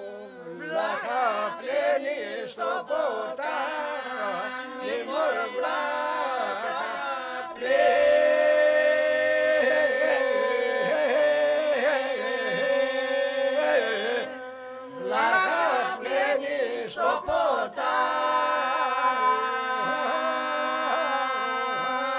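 Unaccompanied group of men and women singing an Epirote polyphonic folk song: a steady held drone under a wavering lead line, in long phrases with short breaks between them.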